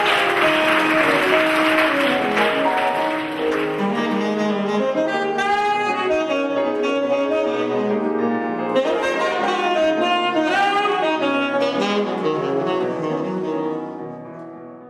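Instrumental music played by two musicians, a melodic piece that fades out near the end.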